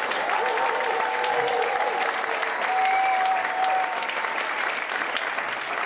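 Theatre audience applauding in a dense, steady clatter of clapping, with a few long cheering calls over it.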